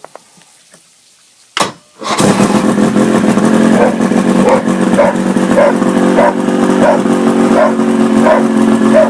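An engine starts about two seconds in and then runs loudly and steadily, with a short regular pulse in its sound a little under twice a second.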